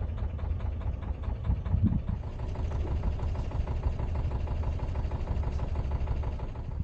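Narrowboat's diesel engine idling with a steady, even beat.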